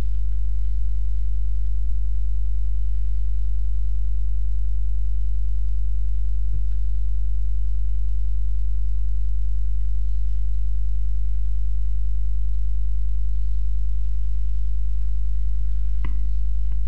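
A loud, steady low hum with even overtones that does not change, with a couple of faint clicks about six seconds in and near the end.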